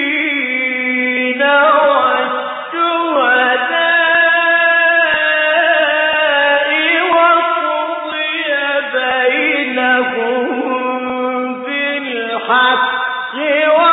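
A man chanting Quranic recitation in the melodic mujawwad style. He draws out long held notes that slide slowly up and down in pitch, in a dull, band-limited old recording.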